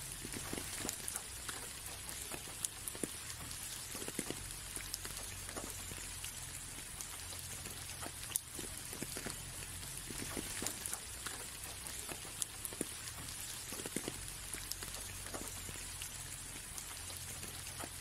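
Light rain falling on a window: a steady hiss with many scattered taps of single drops.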